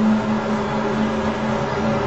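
A steady low droning hum, one held tone with a fainter overtone above it, over a rushing background noise.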